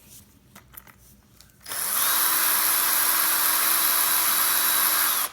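A small power tool runs steadily for about three and a half seconds, starting a little under two seconds in and cutting off sharply near the end: a constant whine over a loud hiss, likely spinning up the fidget spinner.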